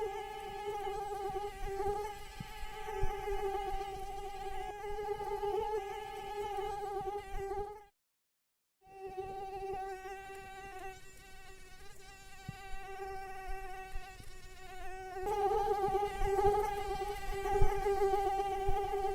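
Mosquito buzzing in flight: a steady high whine that wavers slightly in pitch. It cuts out completely for about a second near the middle, comes back quieter, and grows louder again a few seconds before the end.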